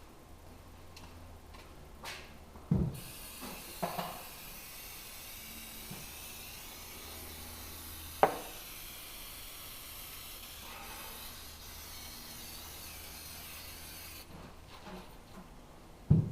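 Several sharp knocks and clunks from hand work on parts, with a steady hiss for about eleven seconds in the middle.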